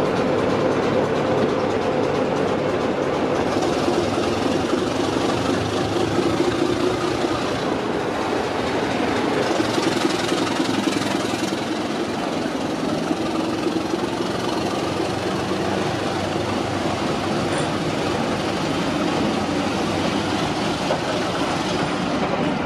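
Diesel locomotive engine running under power, a steady, loud drone with a broad rushing noise over it, stronger hiss for a few seconds in the middle.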